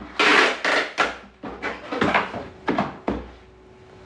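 A quick series of short knocks and rustles, like objects being handled and set down.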